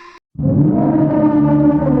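Meme sound effect: after a brief silence, a loud, low-pitched droning tone starts abruptly and holds, with a higher tone gliding above it.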